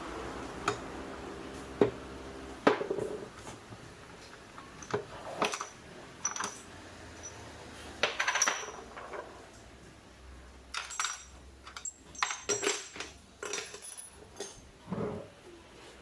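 Metal tools and parts clinking and knocking in irregular, scattered strikes, some with a short high ring.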